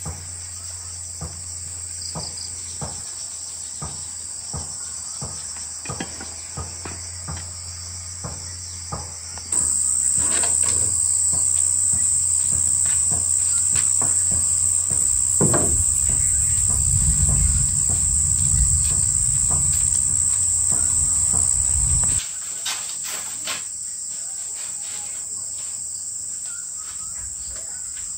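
Insect chorus chirring steadily at a high pitch. It gets much louder about a third of the way in and drops back abruptly around two-thirds through. Scattered light knocks and taps sound throughout.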